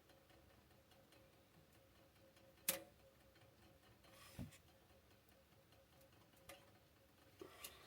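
Near-quiet room with a few scattered sharp clicks and ticks: one loud click about two and a half seconds in, a soft low thump a couple of seconds later, and fainter ticks near the end.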